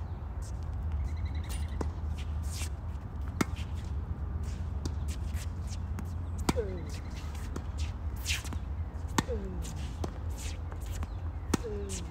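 Tennis rally on a hard court: sharp racket-on-ball hits every two to three seconds, over a steady low rumble.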